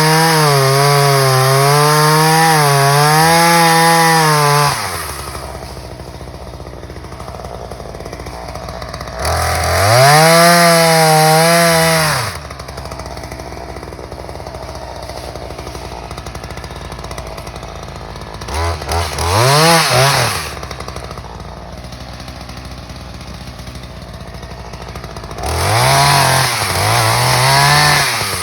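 Two-stroke RYOBI 16-inch gas chainsaw revving hard in bursts and dropping back to idle between them. The first burst, with a wavering pitch, runs until about five seconds in. Shorter bursts follow near ten seconds, a quick double blip near twenty seconds, and a last one near the end.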